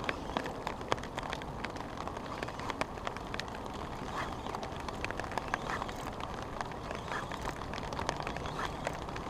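Rain falling on a fishing shelter's canopy: a steady hiss with many irregular, sharp drop taps.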